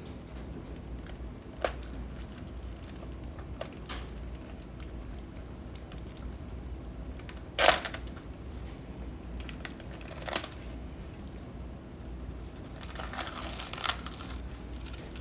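Plastic film on a microwave dinner tray being peeled back and handled: crinkling and scattered sharp crackles, the loudest about halfway through, with a longer rustle near the end.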